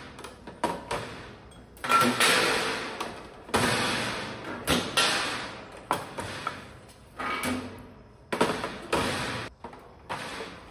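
Glass bottles clinking and knocking as they are lifted from a stainless steel rack and set into a plastic bottle crate: a dozen or so irregular knocks, each with a short ringing tail.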